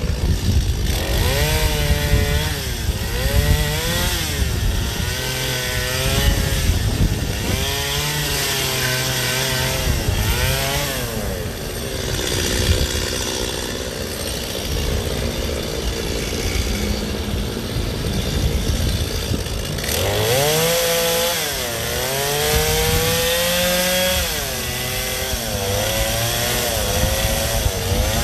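Gas chainsaw cutting ice, its engine revving up and down again and again with the cuts. It settles to a lower, steadier run for several seconds midway, then revs repeatedly again.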